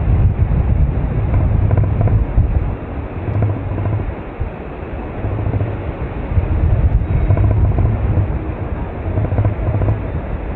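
Wind rushing over the microphone of a camera carried in free paraglider flight: an uneven low rumble that swells and drops every second or so.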